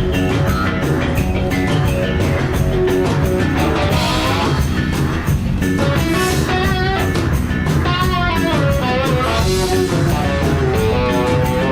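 Live band playing an instrumental section: guitar lines that waver and bend over a steady beat.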